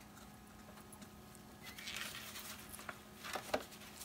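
Small handling noises at a work table: a brief soft rustle about two seconds in, then a few light taps near the end, over a faint steady hum.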